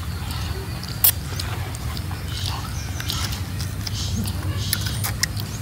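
People biting into and chewing young fruit, with a sharp crunch about a second in and more crunching bites near the end, over a steady low rumble.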